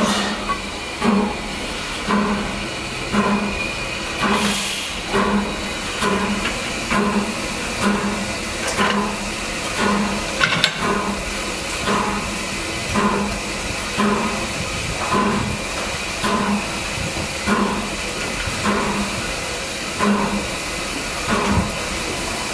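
A small 0-4-0T saddle-tank steam locomotive hissing steam, with a regular chuff about once a second. A sharp metallic click comes about ten and a half seconds in.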